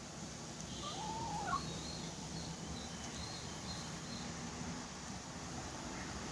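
A chicken gives one short call that rises and falls, about a second in, followed for a few seconds by a run of faint, short high chirps, over a low steady hum.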